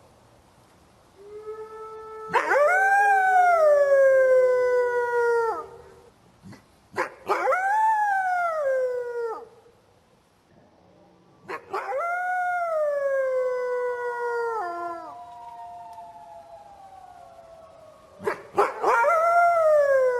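Wolf howling: four long howls with pauses between them, each rising briefly and then sliding down in pitch. A lower, steady second note runs under the first howl, and a fainter falling howl trails after the third. Short sharp clicks come just before several of the howls.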